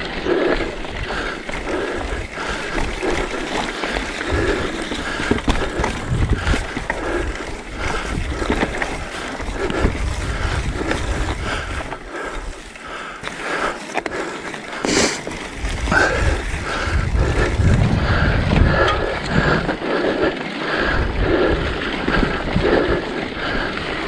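Mountain bike rolling over rough moorland singletrack: tyre noise on stony ground with the bike rattling over bumps, and low wind rumble on the microphone.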